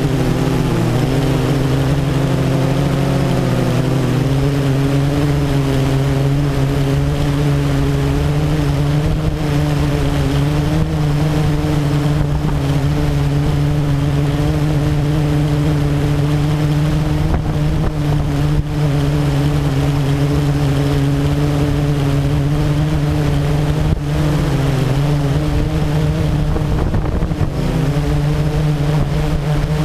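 Blade 350 QX quadcopter's four brushless motors and propellers, heard close up from the GoPro mounted on it: a steady droning hum in flight. The pitch wavers briefly a few seconds in and again near the end as the motors change speed.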